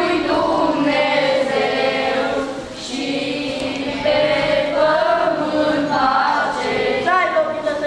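A group of boys singing a Romanian Christmas carol (colind) together in unison, unaccompanied.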